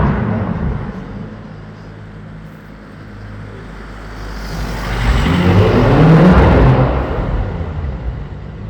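Lamborghini Huracán Performante's V10 engine: a loud pass dies away at the start, then the car accelerates with rising revs, loudest about five to seven seconds in, and fades again near the end.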